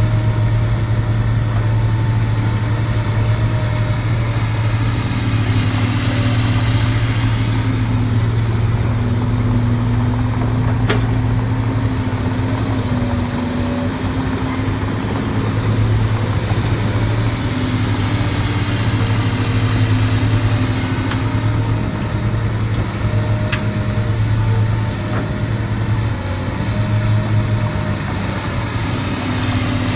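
Diesel engines of heavy earthmoving machinery running steadily, a deep low hum with small rises and falls in engine speed. Two brief sharp clicks come through, one about a third of the way in and one past the middle.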